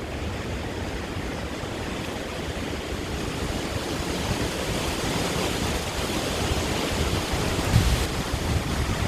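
Hurricane wind blowing hard, with a low buffeting rumble on the microphone; it builds into a stronger gust near the end.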